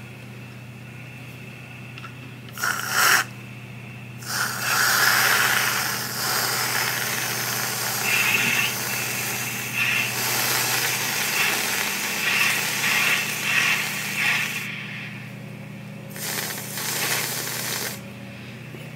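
Aerosol can of whipped cream spraying onto a drink: a short spurt about three seconds in, a long hissing spray of about ten seconds, and another short spray near the end, over a steady low hum.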